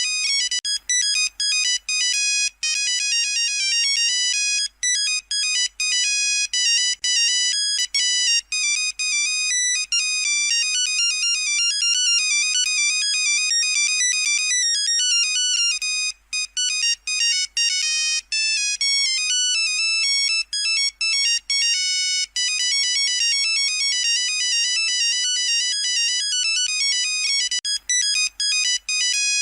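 Nokia 3310 monophonic ringtone playing: a quick melody of electronic beeps, note after note, with short breaks between some notes.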